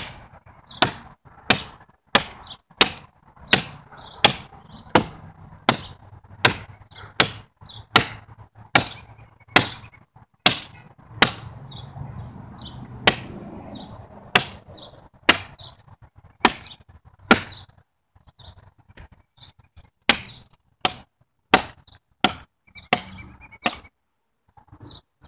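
Axe chopping into wood: a steady run of sharp strokes, about one and a half a second, slowing a little past the middle. It pauses for a couple of seconds near the end, then a few more strokes follow.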